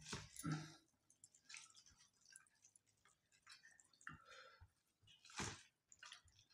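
Near silence with soft eating sounds: chewing, and rice being mixed and scooped by hand on a steel plate, heard as a few faint clicks and wet smacks, the clearest about five seconds in.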